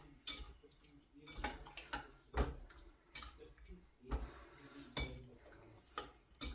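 A spoon stirring chicken strips in a wet sauce marinade in a bowl: irregular wet squelches and clinks of the spoon against the bowl.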